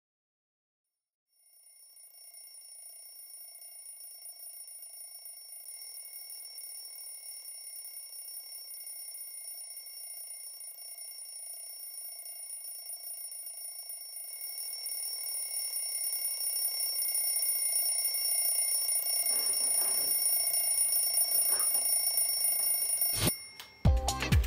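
An alarm ringing: a steady high-pitched tone that grows steadily louder for about twenty seconds, then is switched off abruptly about a second before the end.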